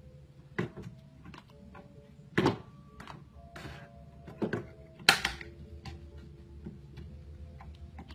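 A cat pawing and pulling at the edge of a cabinet door, making it knock and rattle against its frame in a few separate thumps, the loudest about five seconds in.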